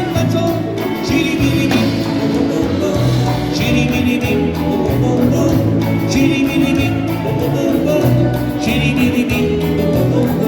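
Live band playing Latin music, with bass notes and a repeating melodic line over a steady beat.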